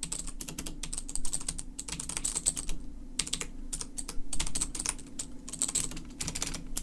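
Typing on a Gamdias Hermes mechanical keyboard with Cherry MX Blue switches: quick runs of clicky keystrokes in bursts with short pauses. The switches are fitted with rubber dampening O-rings and the board sits on a rubber pad, which softens the bottom-out.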